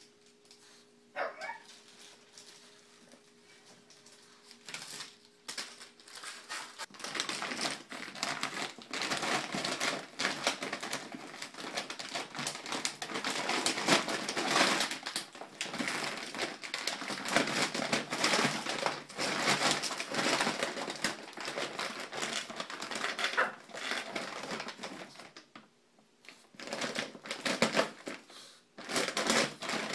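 A pug tearing into and rummaging in a plastic dog-food bag: dense, irregular crinkling and rustling of the plastic that starts about seven seconds in and pauses briefly near the end. Before it there is only a faint steady hum.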